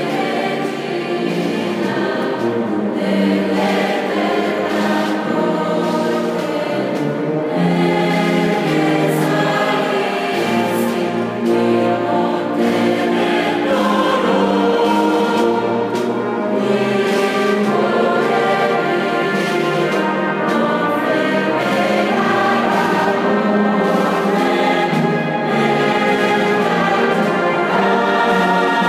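Mixed choir of men's and women's voices singing a sacred piece in held, sustained notes, accompanied by a wind band with saxophones and trombones.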